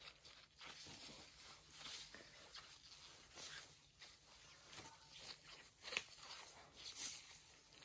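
Faint rustling and soft wiping as a wet washcloth is rubbed over a foot with gloved hands to rinse off soap, with a brief sharper sound about six seconds in.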